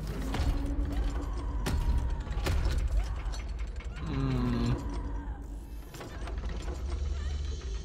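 Sound effects from a science-fiction animation: alien machinery clanking and grinding over a deep rumble, with sharp metallic clicks, while people scream.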